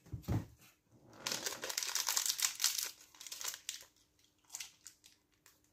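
Plastic snack-bar wrapper crinkling as it is handled, in irregular crackly bursts that are densest from about one to three seconds in, then thin out to a few scattered crackles.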